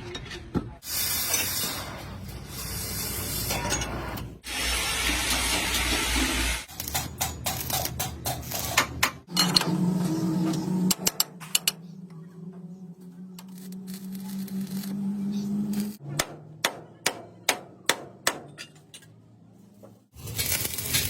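Metalworking sounds in quick, cut-together succession on a truck chassis repair: a loud steady hiss, then runs of sharp knocks, then a steady low motor hum, then more knocks.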